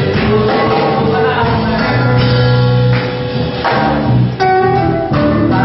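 Live band music: acoustic guitars and a drum kit playing a song, with singing.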